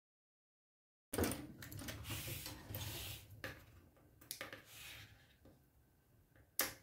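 Silent for about the first second. Then mesh fabric is slid and smoothed across the table with a soft rustling, and a few short snips of scissors trim the threads at the seam, the sharpest near the end.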